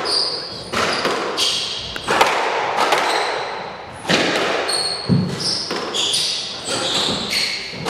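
A squash rally: the ball cracks off rackets and walls again and again, each hit ringing on in the court, with short high squeaks of court shoes on the floor between the shots.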